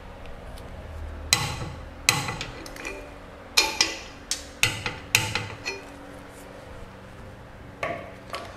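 Steel tools clanking against a cylinder-liner hold-down clamp on a cast-iron diesel engine block: about nine sharp metallic knocks that ring briefly, mostly in the middle, and one more near the end.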